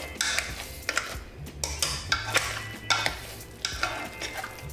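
Wire potato masher working boiled potatoes in a metal pot: a string of short, irregular squishing strokes, roughly two a second.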